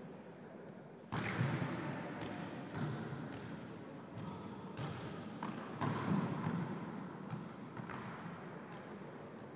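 Volleyball being struck by players' hands and arms, sharp slaps that echo in the large gym, the loudest about a second in and near six seconds, with lighter knocks of ball contact between.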